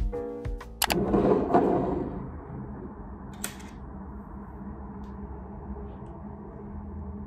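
Piano background music that stops about a second in, followed by a short burst of rustling noise and then quiet room tone with a steady low hum and one faint click.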